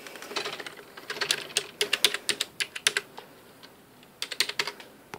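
Typing on a computer keyboard to enter a login password: a quick run of keystrokes lasting about two seconds, then a shorter burst of keys about four seconds in.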